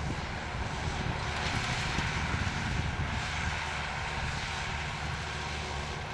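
Diesel engine of heavy harvesting machinery running steadily under load, a continuous low drone with a wide mechanical hiss over it.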